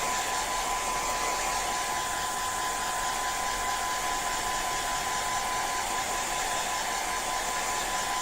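Steady whirr of a small electric fan or blower with a thin, constant high tone, running without change.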